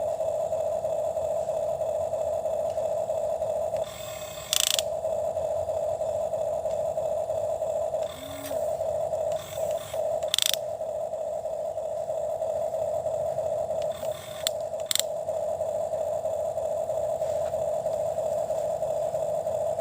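Small electric motor of a toy excavator whining at a steady pitch, briefly broken off a few times by short clicks and scraping as it digs.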